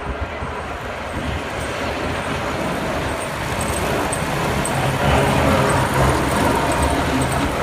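City street traffic: a passing vehicle's engine and tyre noise, growing louder about halfway through with a low engine drone.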